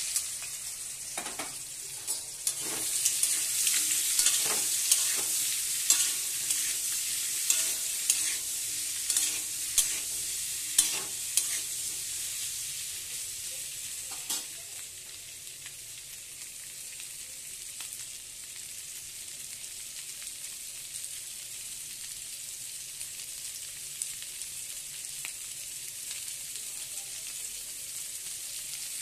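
Whole boiled baby potatoes frying in hot oil with cumin seeds in a metal kadai, sizzling steadily, with sharp knocks of stirring against the pan during about the first half. After about 15 seconds the knocks stop and the sizzle settles a little quieter.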